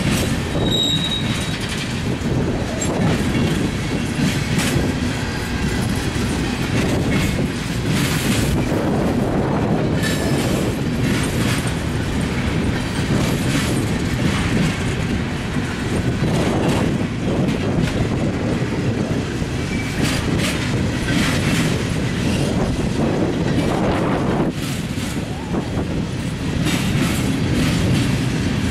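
Freight train cars, covered steel-coil cars and gondolas, rolling past: a steady rumble of steel wheels on rail with clickety-clack over the rail joints and a few brief high wheel squeals.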